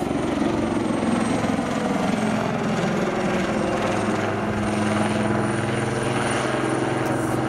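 AgustaWestland AW159 Wildcat helicopter in flight as it banks, the fast chop of its main rotor blades over the whine of its twin turboshaft engines, steady in level, with the engine tones slowly bending in pitch.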